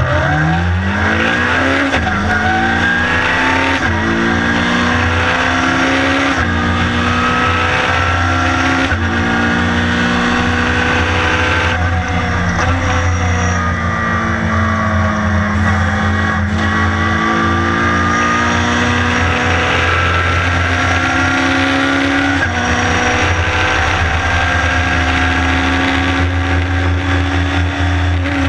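Honda engine of a Lotus race car heard from inside the cockpit, accelerating hard from the race start: its pitch climbs and drops back with an upshift about every two to three seconds, four times in the first twelve seconds. About halfway through, the pitch falls for several seconds as the car slows, then climbs again with another upshift, over a steady low drone in the cabin.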